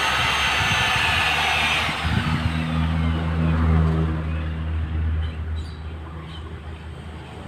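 Electric boat-polishing machine running with a high whine, switched off about two seconds in, its pitch falling away as it spins down. A low steady hum carries on and fades.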